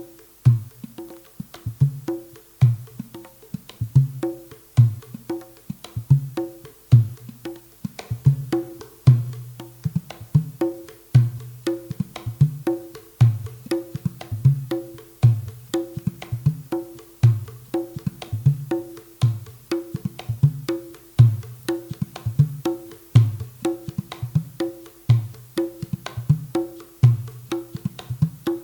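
Ketipung hand drum with a jackfruit-wood shell played in a steady dangdut rhythm: deep bass strokes alternate with sharp, higher slaps in a pattern that repeats about every two seconds.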